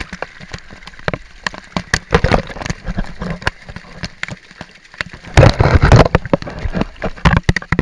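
Waterfall water pouring and spattering directly onto an action camera: dense, irregular drumming and splashing of drops, with a heavy, very loud deluge about five seconds in. It cuts off suddenly at the end.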